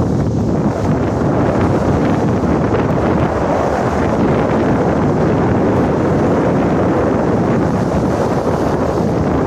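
Fast, turbulent river water rushing and churning in a steady loud wash, with wind buffeting the microphone.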